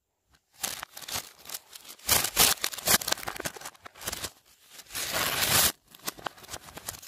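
A paper window envelope being torn, played backwards: bursts of ripping and crinkling starting about half a second in, loudest around two to three seconds in. A longer rip swells up and cuts off sharply near the end.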